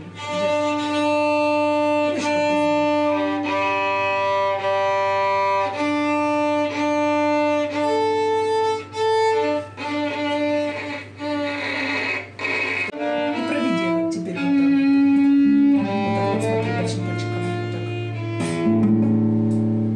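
Violin playing a slow melody in long, clean held notes. In the second half shorter, quickly fading notes take over, with a guitar.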